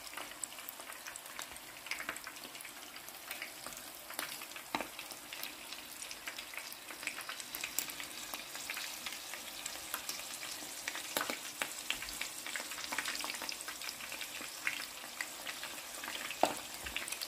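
Batter-coated shrimp deep-frying in hot oil in a pan: a steady sizzle full of small pops and crackles, with a few sharper pops now and then.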